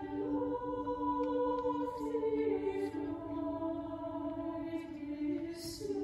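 High voices of a small choir singing slow, sustained chords, the notes shifting every second or two, with a few soft sung 's' sounds.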